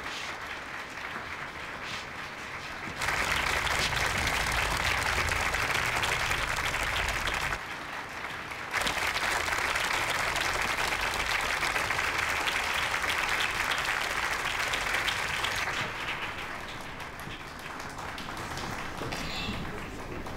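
Audience applauding. The clapping comes in suddenly about three seconds in, breaks off abruptly for about a second midway, comes back just as suddenly, and drops to a lower level for the last few seconds.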